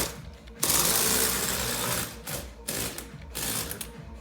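Small electric motors of a remote-control Lego car whirring in start-stop bursts as it is driven: one run of about a second and a half starting just under a second in, then a shorter burst around three seconds.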